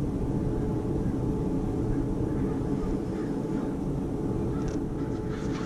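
A steady, low motor drone holding several even pitches throughout.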